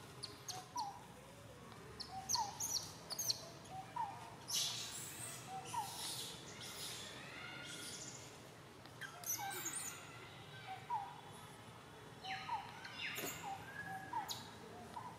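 Short rising chirp calls, repeated roughly once a second, with a couple of louder rustling bursts about a third of the way in and near the end.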